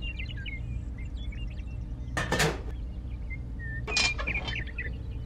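Small plastic and metal clicks and clatter as a toy trailer's ring hitch is hooked by hand onto a mini tractor, with two louder short scrapes about two seconds and four seconds in, over a steady low hum.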